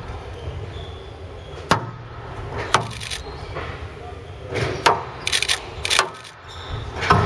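Squash rally: the ball is struck hard by the rackets and cracks off the walls, a sharp impact every second or two, about six strikes in all.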